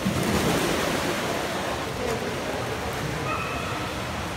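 A child jumping into a swimming pool: a splash right at the start as she hits the water, followed by steady churning water noise.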